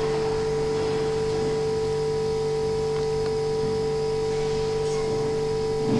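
A steady electrical hum carrying one strong mid-pitched tone and fainter higher and lower tones, over a constant low hiss.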